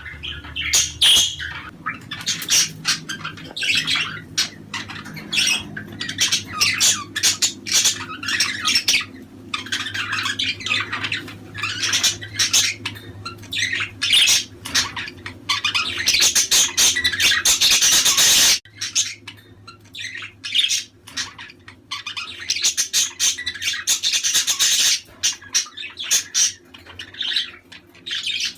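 A flock of budgerigars chattering and squawking, with dense overlapping chirps and warbles. The chatter breaks off abruptly about two-thirds of the way through, then goes on.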